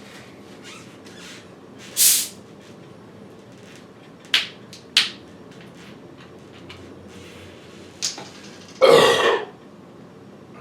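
A man burps loudly near the end after chugging carbonated Coca-Cola Zero, a burp full of gas from the soda. Earlier come three short hissing sounds and a click.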